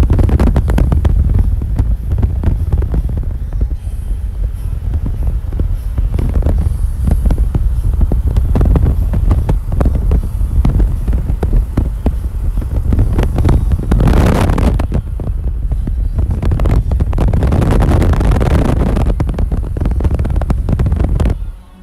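Wind buffeting the phone's microphone with road rumble from a moving car: a loud, uneven low rumble with stronger gusts about two-thirds of the way through, dropping away suddenly just before the end.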